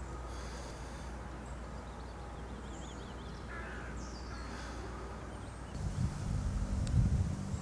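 Outdoor ambience by water: a steady low rumble with scattered bird chirps and trills and one harsher call about halfway through. About six seconds in, a louder, uneven low rumble with a few thumps starts.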